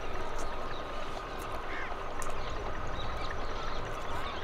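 Outdoor riverside ambience: wind buffeting the microphone with a low rumble, under the steady hum of a tubewell pump. Scattered bird chirps and a few light ticks come through on top.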